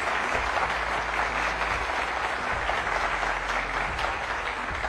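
Studio audience applauding: dense, steady clapping from a large seated crowd.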